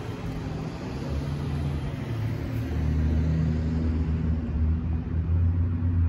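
Low, steady engine rumble with a deep hum, growing louder about three seconds in.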